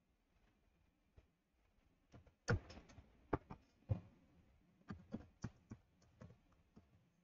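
Keys being pressed: a dozen or so faint, irregular clicks and taps, the loudest about two and a half seconds in.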